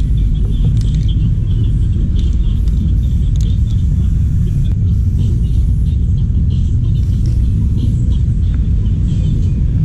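Steady low rumble of outdoor noise, loud and even throughout, with no pitched engine note.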